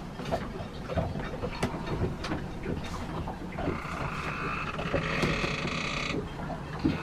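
Scattered knocks, clicks and creaks from someone moving about inside a small yacht's wooden cabin, over a steady low rumble. About three and a half seconds in, a higher, steady sound joins for roughly two and a half seconds, then stops suddenly.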